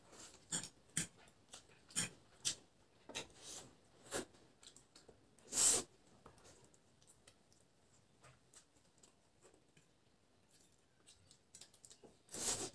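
Close-up eating sounds of a person eating Maggi instant noodles: a run of short wet smacks and chewing for the first few seconds, a loud slurp of noodles about six seconds in, quieter chewing after, and another loud slurp near the end.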